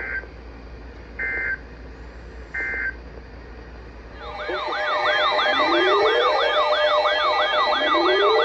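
Three short EAS/SAME digital data bursts, the end-of-message code that closes a weather radio alert. About four seconds in, a loud electronic siren-like wail begins, several tones warbling up and down about twice a second over slow rising sweeps.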